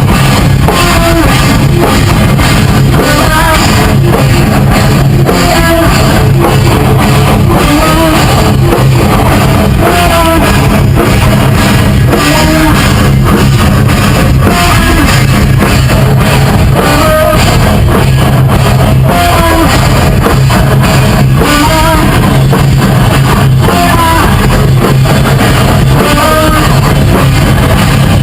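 Rock band playing a song: electric guitar over a drum kit, loud and continuous.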